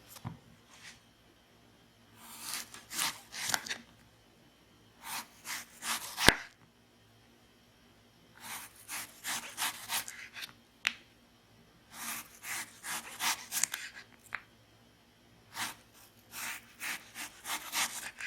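Freshly sharpened ceramic knife being tried out, cutting in slicing strokes that come in five groups of several quick strokes each, with a sharp knock about six seconds in.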